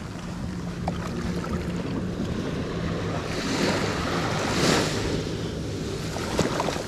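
Small waves washing up onto a sandy beach, one wash building to its loudest about four to five seconds in, with wind rumbling on the microphone.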